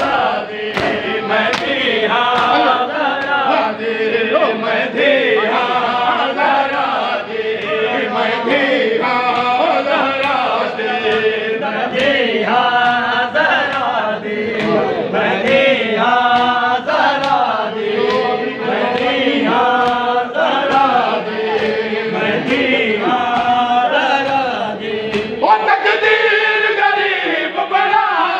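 A group of mourners chanting a noha, a Shia Muharram lament, together in sung phrases, over a steady rhythm of matam: hands beating on chests in time with the chant.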